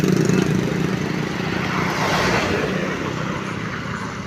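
A motor vehicle passing close by: its engine hum fades just after the start, then a swell of passing road noise about two seconds in dies away.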